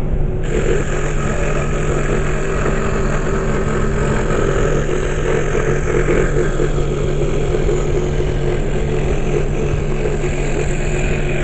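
Scroll saw running steadily, its reciprocating blade cutting through a thin board, over a steady motor hum.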